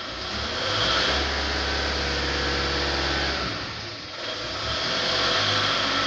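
A machine running: a steady low hum under a loud rushing noise with several steady tones in it. The low hum drops away about three and a half seconds in.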